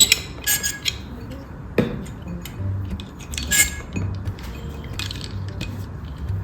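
A utensil clinking and tapping against a container in a few short clusters, over soft background music.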